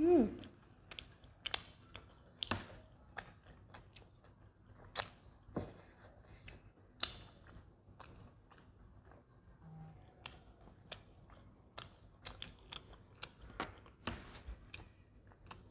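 Close-miked chewing of soft doughnuts: irregular wet mouth clicks and smacks throughout. At the very start a short falling hum from a voice is the loudest sound.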